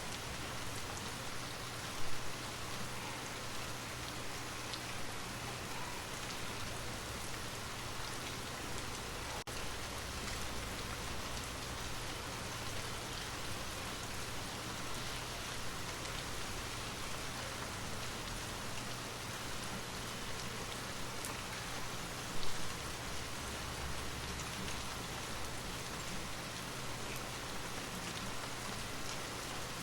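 Steady rain falling, an even hiss of drops on surfaces, with two brief louder moments about two seconds in and about two-thirds of the way through.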